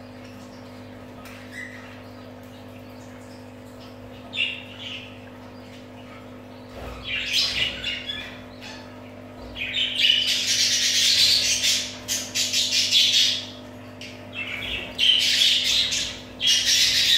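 A flock of budgerigars chattering and squawking: a few short calls at first, then dense, loud chatter from about seven seconds in, coming in stretches of a few seconds each. A steady low hum runs underneath.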